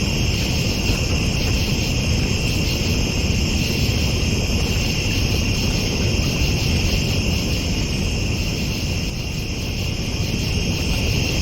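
A dense chorus of night insects chirring steadily in high, even bands, over a continuous low rushing noise.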